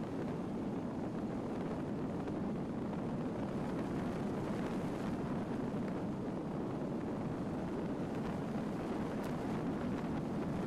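A car driving steadily along a gravel road: a constant rumble of tyres on loose gravel and engine noise, with a few faint ticks near the end.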